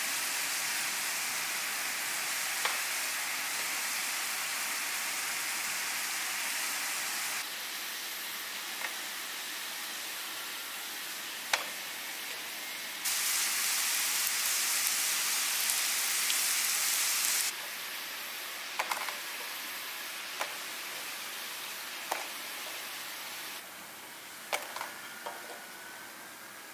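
Hot oil sizzling steadily in a frying pan around tofu-and-lupin fries, with a few sharp clicks of utensils on the pan. The sizzle is loudest for several seconds in the middle, when a fresh, pale batch is frying.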